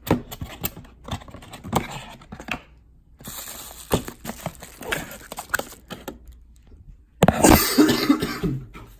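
Camera-gear packaging being handled and unwrapped by hand: a run of clicks, taps and rustles, with a louder burst of noise lasting about a second and a half near the end.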